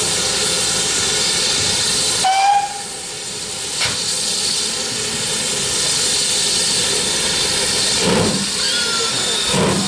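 BR Standard Class 4MT tank locomotive pulling slowly away, its cylinder drain cocks hissing steam. A brief whistle toot comes about two seconds in, and there are a few slow, widely spaced exhaust beats in the second half.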